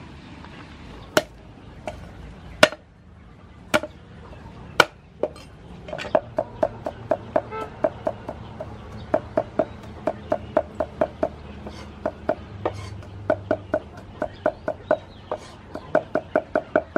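Knife chopping vegetables on a thick round wooden chopping board: a few separate sharp knocks, then a steady run of chops about three a second from about six seconds in, quickening near the end.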